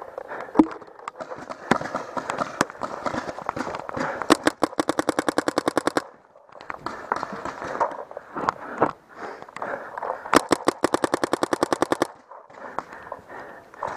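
Paintball marker firing: scattered single shots, then two long rapid strings of about ten shots a second, each lasting about a second and a half, the first about four seconds in and the second about ten seconds in.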